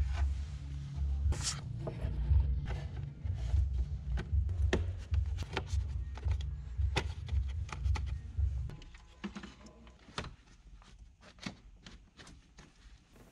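Sharp clicks and knocks of parts and hand tools being handled while an engine bay is reassembled, over a low rumble that stops about nine seconds in.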